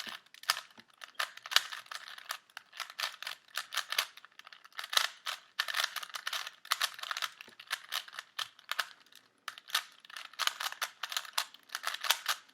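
3x3 Rubik's cube being scrambled by hand: rapid, irregular clicking and clacking of its plastic layers turning.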